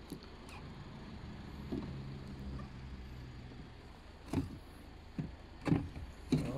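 A few sharp plastic clicks and knocks as the rear light unit of a 2007 Toyota Avensis is handled and pulled free, coming in the second half with the loudest about two thirds of the way through. A faint low hum sits under the first half.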